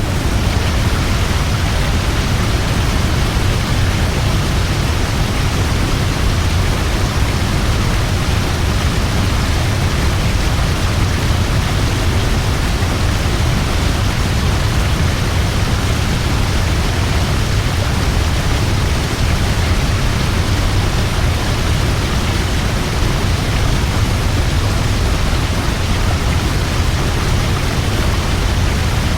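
A large waterfall: water falling and crashing in a loud, steady roar of rushing noise with a deep low rumble, unchanging throughout.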